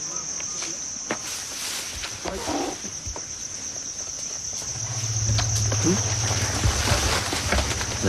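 Crickets chirring steadily in one high, unbroken band. From about five seconds in, a low steady rumble joins underneath.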